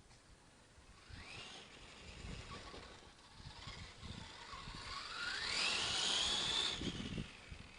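Electric motor of a 3D-printed RC monster truck whining as it speeds up, a short rise about a second in and then a longer rise in pitch from about four seconds, levelling off near the end, over a low rumble.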